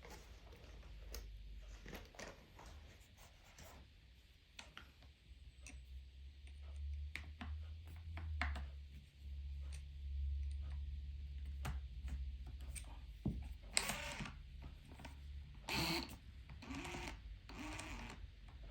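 Scattered light clicks and knocks of hands handling steel impact sockets and their plastic case, with a low hum in the middle and a few short rustling bursts near the end.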